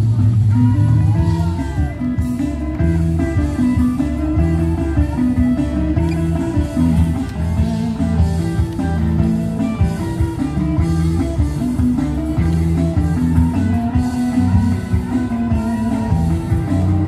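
A band playing blues-rock: guitar over a steady, walking bass line.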